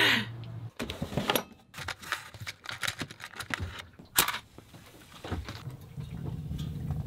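Small clicks and rustles of a matchbox being handled, then a match struck sharply against the box about four seconds in, followed by a low, steady hum.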